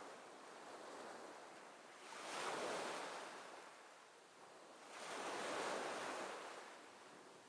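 Ocean waves washing in, a faint hiss of surf that swells up twice and falls away again.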